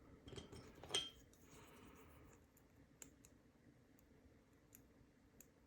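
Faint, sparse clicks of small metal padlock parts being handled, the loudest about a second in.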